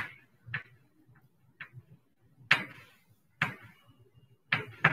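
Chalk tapping and scratching on a blackboard as a word is written: a handful of short, separate taps at uneven spacing.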